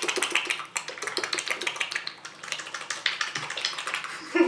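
Rapid, irregular wet clicks and smacks from marshmallow-stuffed mouths and sticky fingers as the cheeks are pinched and squeezed, with a short vocal sound near the end.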